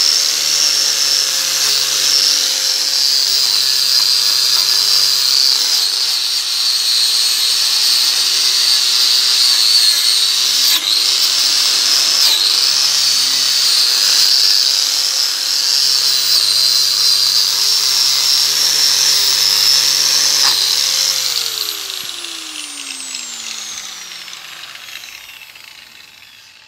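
Makita GA5030 angle grinder spinning a wire wheel brush against a steel lawn mower blade, cleaning it: a loud, steady high whine with a few brief dips as the brush bites. About 20 seconds in it is switched off and the whine falls in pitch as the grinder spins down.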